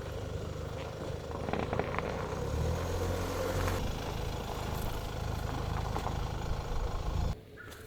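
A vehicle engine running with a steady low rumble and a few light clicks and clatters, cutting off abruptly near the end.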